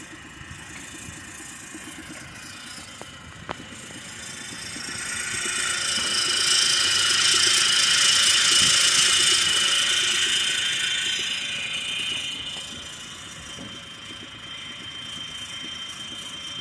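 Belt conveyor's electric drive motor and belt drive running steadily, with a high whine and hiss that swell to their loudest about eight seconds in and then fade again.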